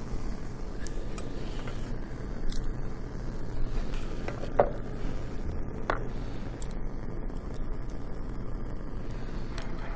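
Lit Bunsen burner giving a steady low rush of gas and flame, with a few clinks of glass test tubes being handled. The loudest clink, about halfway through, rings briefly, and a second ringing clink follows about a second later.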